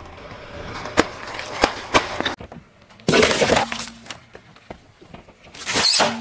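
Car tyre rolling over and crushing objects on asphalt. A few sharp snaps in the first two seconds are followed by two loud crackling crunches, one about three seconds in and one near the end, as packaging and foil-wrapped items are flattened.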